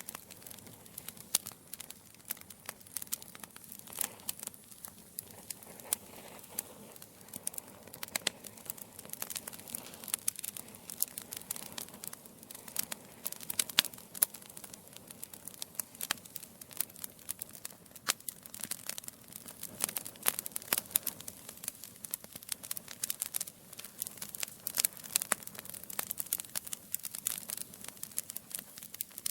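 Wood fire in a fireplace crackling: burning logs giving off a dense, irregular stream of sharp pops and snaps over a soft hiss.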